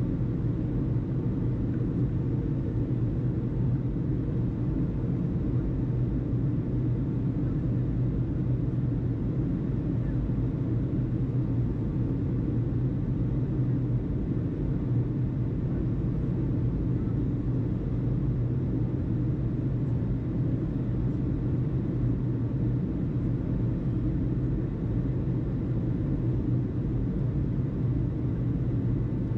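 A steady, even low rumble that does not change, with no radio speech.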